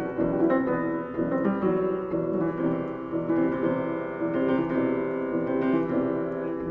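Solo piano playing the closing bars of a song, with chords and single notes struck and left to ring.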